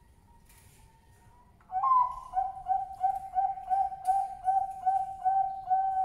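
Male Bangkok-strain zebra dove (perkutut) singing: about a second and a half in it starts with a higher opening note, then a run of even, rhythmic coos, about three a second, that carries on without a break.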